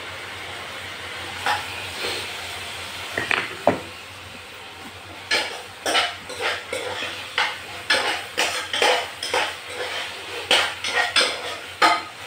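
Metal spoon clinking and scraping against a small steel saucepan while stirring chopped onion, garlic and green chilli frying in oil, over a steady sizzle. A few knocks in the first four seconds as the vegetables go in, then quick clinks about two a second from about five seconds in.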